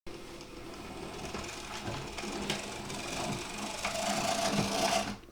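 A model railway locomotive's small electric motor and gears whirring as it runs along the track, with occasional clicks. The whine grows stronger near the end. The motor is noisy, which the owner puts down to dried-up lubrication.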